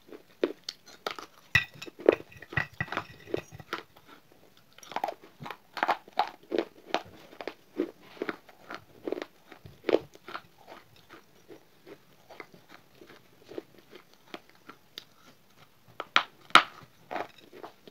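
Pieces of a broken fired-clay saucer being bitten and chewed: a quick run of sharp, gritty crunches that thin out past the middle, with a loud crunching bite near the end.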